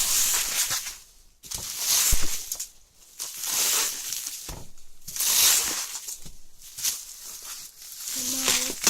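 Packaging rustling and crinkling in repeated swishes as a box is unpacked by hand.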